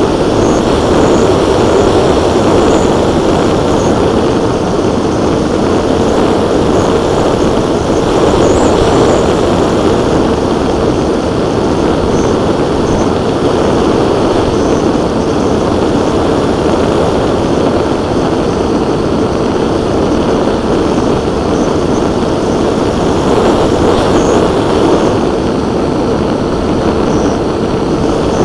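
The twin propeller motors of a scratch-built Twinsurfer RC plane running steadily in flight, mixed with wind rushing over the onboard camera's microphone.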